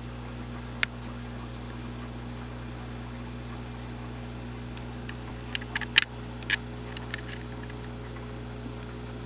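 Steady low hum with an even hiss, broken by one sharp click about a second in and a quick cluster of sharp clicks about six seconds in.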